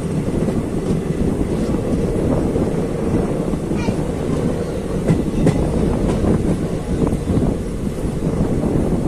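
Moving passenger train coach, its wheels running on the rails with a steady rumble and scattered clicks.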